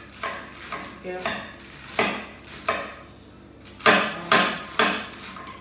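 Knife slicing through a raw cabbage: about ten irregular cutting strokes, the loudest three coming quickly together a little under four seconds in.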